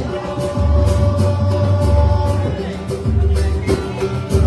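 A live pagonejo band playing: bass and percussion keep a steady beat under a long held note in the first half, with a second held note near the end.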